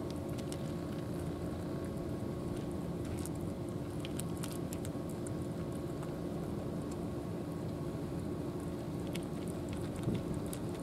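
Cats chewing dry kibble and meat, with scattered small crunching clicks, over a steady low mechanical hum.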